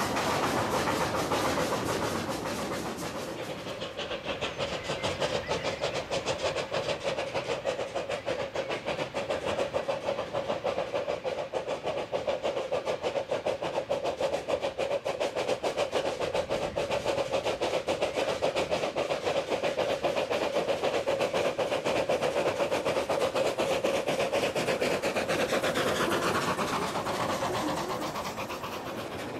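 Miniature park-railway steam train running, with fast, even clickety-clack from its wheels and a steady tone underneath. Near the end the train passes close by and the pitch falls away.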